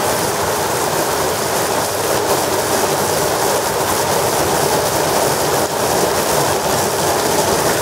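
Heavy thunderstorm rain falling steadily: a loud, even rush of noise with no breaks.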